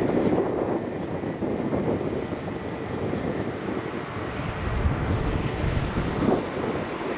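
Jet aircraft engines running: a steady, noisy rumble that deepens for a couple of seconds past the middle.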